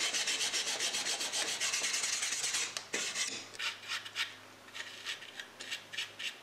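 A small brush scrubbing the bare wooden inside of an old box in rapid back-and-forth strokes. About three seconds in, the scrubbing breaks into separate, quieter strokes that fade out.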